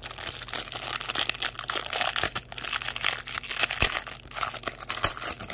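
Plastic wrapper of a Panini Mosaic basketball card pack crinkling as it is torn open and crumpled in the hands: dense, uneven crackling that stops at the very end.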